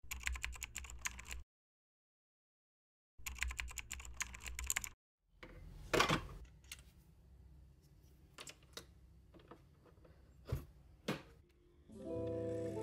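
Two short bursts of rapid clicking with a gap of silence between them. Then scattered knocks and clicks as a capsule coffee machine is handled, its lever lifted and pressed, with a sharp knock about six seconds in.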